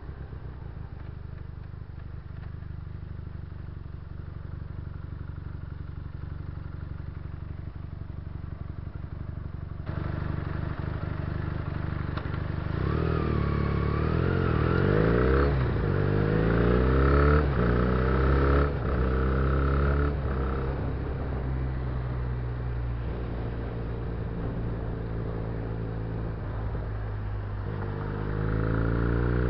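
Benelli 300 cc parallel-twin motorcycle engine heard from the rider's seat while riding in traffic: a steady low hum at first, growing louder about a third of the way in, then revving up and shifting through the gears several times, settling to a steady cruise, and accelerating again near the end.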